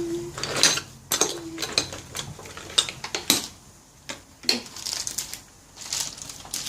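Scattered clicks, clinks and rustles of scissors and a plastic packet of seashells being handled and cut open.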